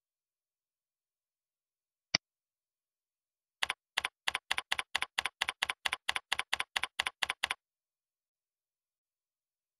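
A single mouse click, then a run of computer keyboard keystrokes lasting about four seconds, some five a second, as text is typed into a field.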